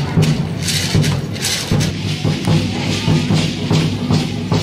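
Live dance music for a street procession: a steady drum beat with rattling percussion, about two strokes a second.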